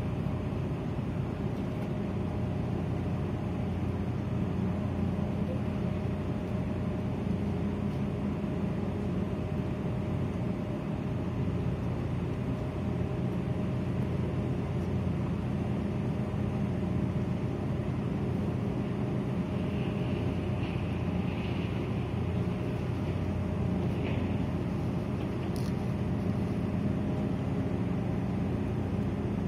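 Steady, low marine diesel engine drone with a constant hum.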